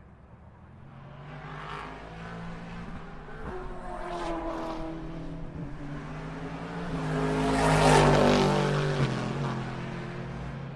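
GT Le Mans race car engine approaching and passing at speed, building to its loudest about eight seconds in, then dropping in pitch as it goes away.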